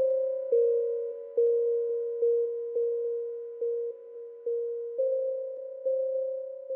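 Background music: a soft electronic keyboard melody of single notes struck about once or twice a second, each dying away, stepping between two close pitches.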